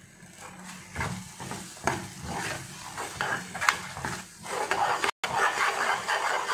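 Perforated steel spatula stirring and scraping thick mango chutney around an aluminium kadai, a run of repeated scraping strokes that starts about a second in, with a brief gap about five seconds in.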